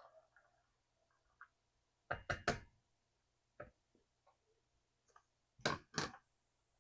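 A cooking utensil knocking against a skillet: a quick run of three knocks about two seconds in, a single one a second later, and two more near the end, with a few faint ticks between.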